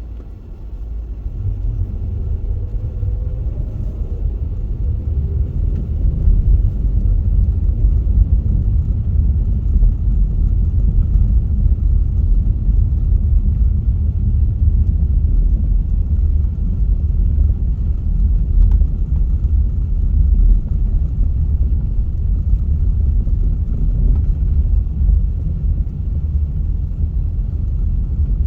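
Car driving, a steady low rumble of engine and road noise that grows louder over the first several seconds as it picks up speed, with a faint rising whine early on.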